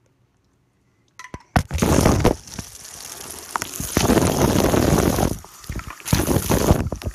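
Shower water spraying straight onto a phone's microphone: a loud, rough rushing noise that starts about a second and a half in and swells and dips as the phone moves under the stream.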